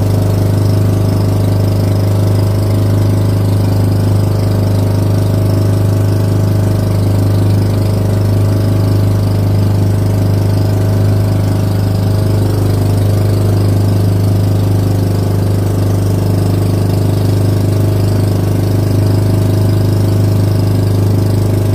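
Motorized outrigger boat's engine running steadily under way, a loud, even drone with a strong low hum.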